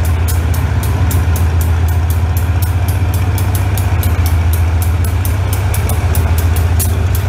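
Diesel-electric locomotive no. 4557 running loud as it rolls slowly past at close range: a heavy, steady low engine hum with a fast, even chatter of about five beats a second on top.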